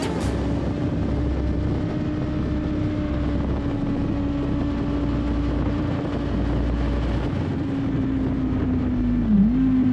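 2007 Suzuki GSX-R 1000's inline-four engine running at steady high revs on track, heard from a camera on the bike over wind rush. The engine note sags slowly, dips sharply for a moment near the end and comes back a little lower.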